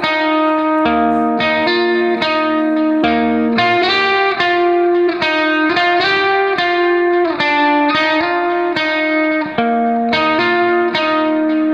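Background music: a guitar tune played as a run of plucked notes at a steady pace.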